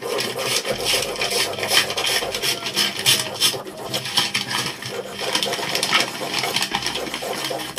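Abrasive scraping as a small cast silver bar is finished by hand, rubbed in short, irregular strokes.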